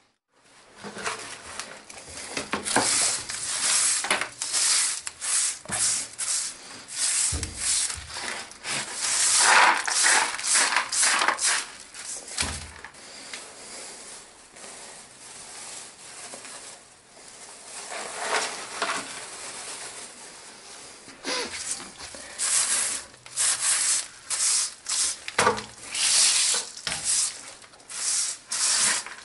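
Straw broom sweeping debris across the floor into a plastic dustpan: repeated short brushing, scraping strokes that come in spells, with a few dull knocks along the way.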